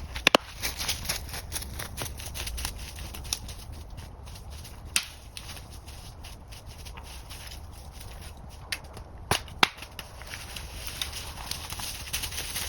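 A few sharp wooden cracks and knocks: one just after the start, one about 5 s in, and two close together near 9.5 s. Light crackling and rustling continue throughout, as when wood and forest litter are handled.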